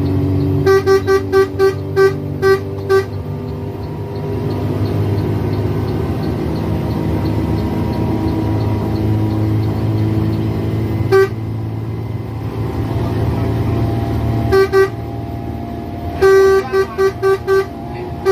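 Bus horn tooting in quick short blasts: a run of about seven in the first few seconds, a single toot near the middle, then two more and a final burst of five near the end. Under it the bus's engine runs with a steady drone.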